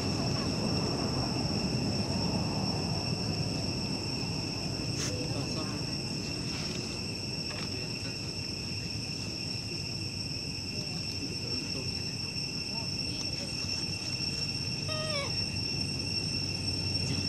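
Insects buzzing steadily at two high pitches, over a low background rumble. A short call comes about 15 seconds in.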